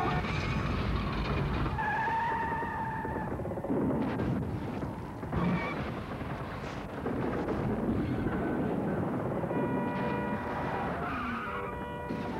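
Movie earthquake sound effects on an elevated freeway: a continuous heavy rumble under cars skidding, with a tyre squeal about two seconds in and several steady tones near the end.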